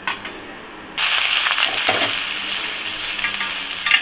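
Sizzling on a hot dosa tawa that starts suddenly about a second in and carries on steadily, with a few sharp knocks of a utensil against the pan.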